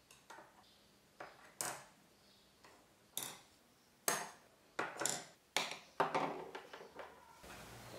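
Paintbrushes being set down one at a time on a desk: a dozen or so light clicks and taps of the brush handles, spaced irregularly and more frequent in the second half.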